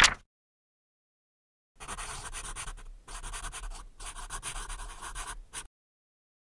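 A page flipped over with a brief, loud paper rustle at the start, then a pen scratching across paper in three stretches with short breaks between, as a line of words is written.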